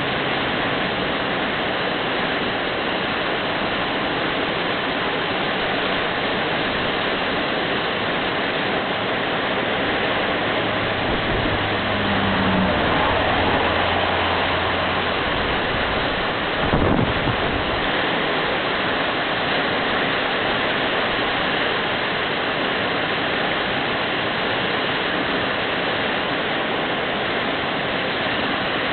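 Fast, swollen creek water rushing over rocks in rapids, a steady loud rush of white water. A brief low thump comes a little past halfway.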